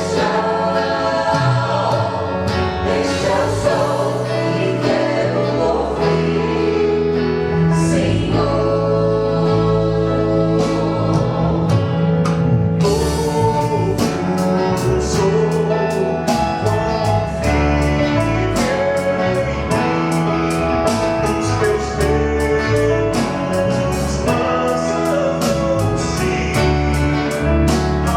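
Christian vocal group singing a gospel song in harmony over an instrumental backing with bass and percussion; the beat grows busier about halfway through.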